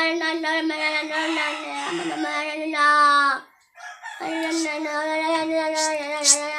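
A boy singing in a high child's voice, holding two long drawn-out notes with a slight waver and a short break for breath between them.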